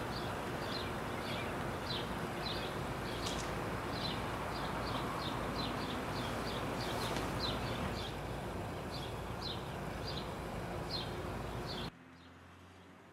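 A small bird chirping over and over, short high chirps about two a second, over a steady outdoor background rush. Near the end the whole sound drops off abruptly.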